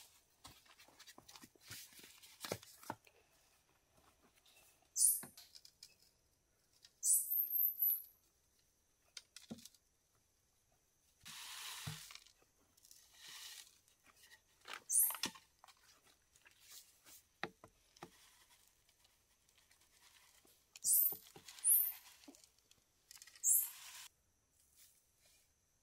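Loose soil poured from a bamboo tube into split bamboo planting troughs, a dry rushing hiss lasting about a second near the middle, with light taps and knocks of bamboo. Short high chirps sound several times over it.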